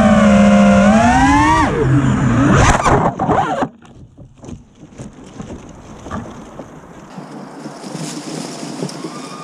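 FPV freestyle quadcopter's brushless motors whining loudly, the pitch rising and falling with the throttle. About three seconds in the quad hits a tree, a quick clatter of props striking branches and leaves, and the motor sound cuts off, leaving only faint rustling of dry leaves and small clicks.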